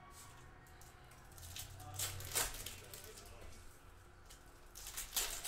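Foil trading-card pack wrappers crinkling and cards being handled, with two louder rustling bursts, one about two seconds in and one near the end.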